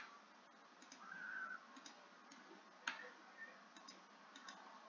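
A few faint, sparse computer-mouse clicks against a quiet room, two of them sharper, at the start and about three seconds in.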